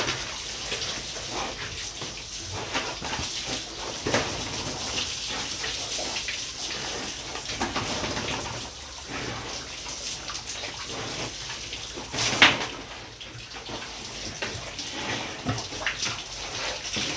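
Water spraying from a hose onto pigs and a wet concrete pen floor: a steady hiss with spattering splashes, and one brief louder burst about twelve seconds in.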